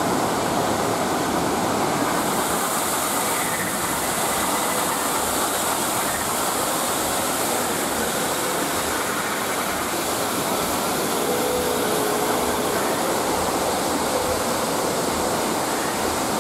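Waterfall: a steady rush of water falling over rocks.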